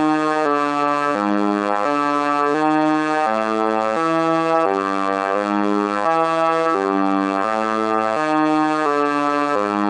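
Synthesized buzzy electronic tones, a robot-style sound effect, stepping from one steady pitch to the next about twice a second without a break.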